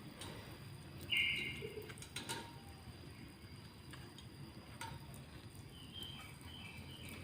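Lovebirds calling: one loud, harsh, buzzy call about a second in, then a few short high chirps near the end, over faint scattered clicks.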